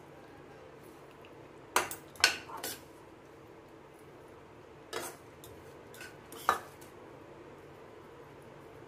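Steel spoon clinking and scraping against a stainless-steel kadhai and a small steel measuring bowl while scooping a coarse ground dry-fruit mixture. A handful of sharp, briefly ringing clinks come at irregular intervals, two close together about two seconds in and others around five and six and a half seconds, with quiet between.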